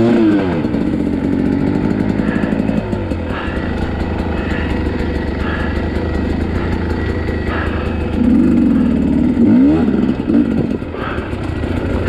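Dirt bike engine running at low revs, blipped up and down in pitch near the start and again about eight seconds in, as it is worked over rocky ground.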